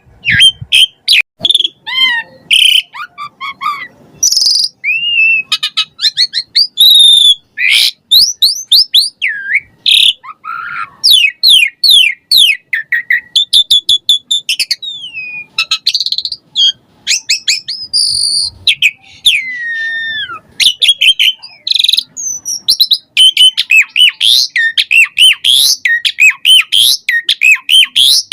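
Asian pied starling (jalak suren) singing a long, rapid song of varied whistles, chattering notes and rising and falling glides, with only short gaps.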